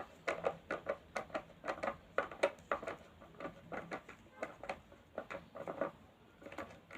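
Phillips screwdriver turning a screw into an electric blender's plastic housing: a quick, irregular run of small clicks and scrapes as the screw is driven home.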